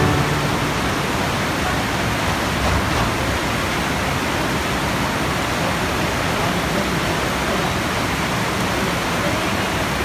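A small waterfall and a mountain stream rushing over boulders: a steady, even hiss of falling water with no breaks.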